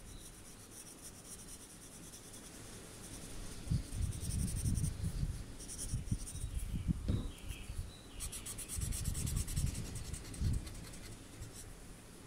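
Graphite pencil shading on a paper Zentangle tile: repeated short scratchy strokes of the lead across the paper, quiet at first and busier from about four seconds in.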